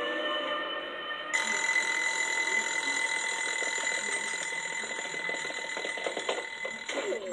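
Twin-bell wind-up alarm clock ringing in a film soundtrack, heard through a tablet's small speaker. It starts about a second in, rings with a fast steady rattle, and cuts off just before the end.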